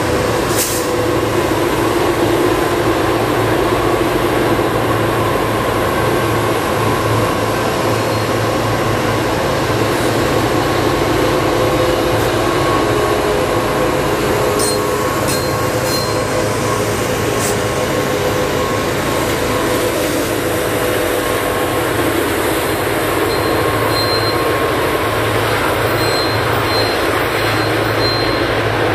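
Norfolk Southern SD40E helper locomotives shoving a loaded coal train up a grade, their turbocharged EMD diesels screaming at full throttle: a loud, steady sound with a constant high whine over a low hum.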